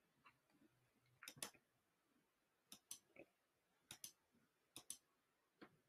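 Faint computer mouse-button clicks, a handful of them, mostly in quick doubles (press and release), against near silence.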